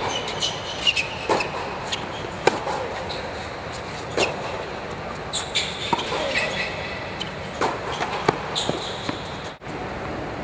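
Tennis rally on an indoor hard court: sharp pops of racket strikes and ball bounces about every one to two seconds, with short high squeaks of shoes on the court between shots, in the echo of a fabric-domed hall.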